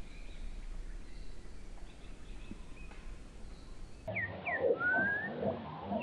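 Bird calls: a few short, sharp whistles sliding downward, with one rising whistle among them, beginning about four seconds in. Before that only faint, steady outdoor background.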